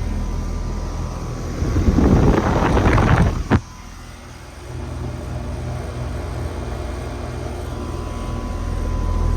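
A 2007 Carrier 4-ton central air conditioner condensing unit is running steadily: the scroll compressor hums under a sound blanket and the condenser fan turns. Between about two and three and a half seconds in, a louder rushing noise rises over it and ends in a sharp knock. The level dips briefly, then the steady hum comes back.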